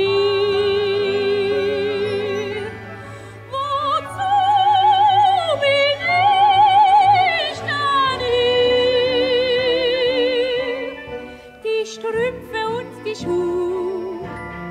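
Tenor and soprano singing an operetta duet with orchestral accompaniment: long held notes with wide vibrato, climbing to high notes in the middle and easing back down.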